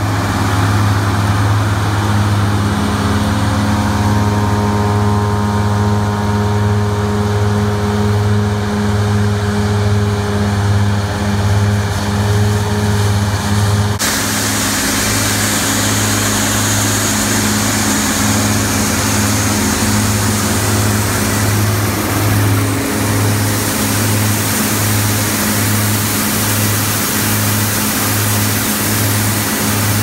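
New Holland CR9040 combine's diesel engine running steadily at a constant pitch while it unloads soybeans through its unloading auger. About halfway through, the sound turns brighter as a steady hiss from beans pouring out of the auger spout comes in.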